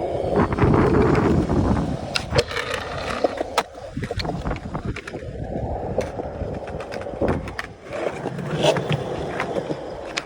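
Skateboard rolling on concrete: a steady wheel rumble broken by several sharp clacks of the board hitting the ground.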